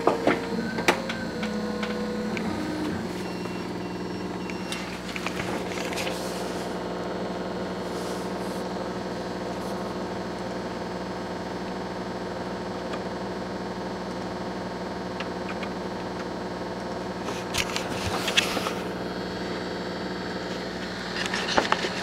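50 W laser engraver/cutter running while it cuts acrylic: a steady machine hum made of several steady tones, with tones that shift in pitch during the first few seconds. A few knocks and rustles from the camera being handled come near the start, at about eighteen seconds and at the end.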